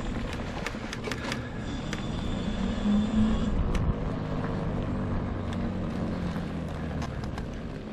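Homemade battery-powered all-wheel-drive mobility scooter running along a trail: a steady motor hum with frequent small knocks and rattles.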